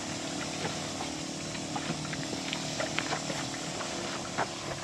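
A battery-powered backpack sprayer's pump motor runs with a steady hum while the wand is held open, with a few short clicks scattered over it.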